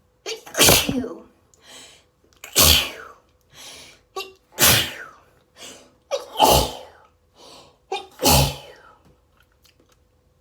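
A person in a rapid allergy sneezing fit: five loud sneezes about two seconds apart, each with a short sharp breath in just before it.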